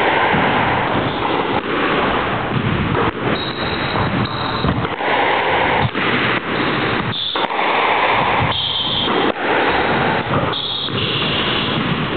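Squash rally: the ball is struck by rackets and smacks off the court walls again and again, with several short, high squeaks of court shoes on the wooden floor, over a constant rushing noise.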